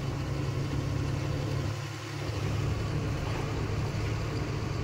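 Truck engine running steadily under way, with road noise, easing briefly about two seconds in.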